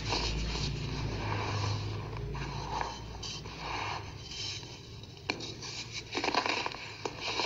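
Compacted lumps of baking soda being crushed and crumbled between the fingers: a dry, gritty scraping and crunching. There are a few sharper snaps about five seconds in and near the end, with a louder crunch at about six seconds.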